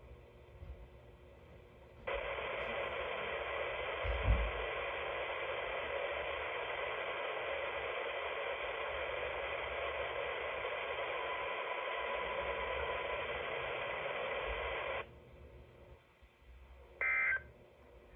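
Weather radio receiver static: a steady hiss starts suddenly about two seconds in, with a brief low bump soon after, and cuts off sharply about thirteen seconds later. Near the end comes a short, harsh two-tone data burst, the first of the repeated SAME header bursts that open a NOAA Weather Radio weekly test.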